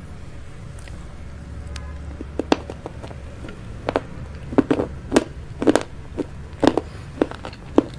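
Scattered short, sharp clicks and taps, about a dozen, coming irregularly from about two seconds in, over a low steady hum.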